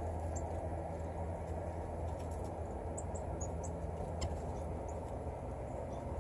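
Short, very high chip notes from chestnut-backed chickadees at a suet feeder, scattered and bunched about three to four seconds in, over a steady low background rumble.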